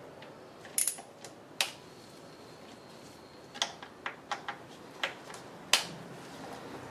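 Hand ratchet wrench turning the transmission oil-pan bolts: scattered sharp metallic clicks, singly and in small groups, the loudest one near the end.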